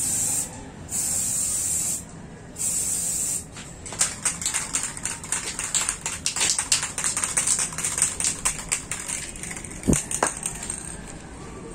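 Aerosol spray paint can spraying in three short hissing bursts. Then several seconds of rapid, irregular clicking and rattling, with a single knock about ten seconds in.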